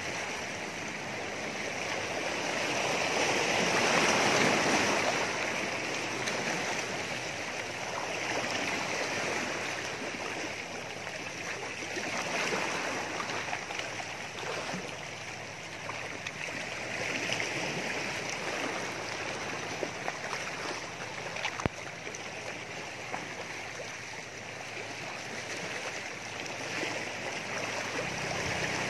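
Small sea waves washing and lapping against shoreline rocks, a steady rush that swells and eases every few seconds. One sharp click about three-quarters of the way through.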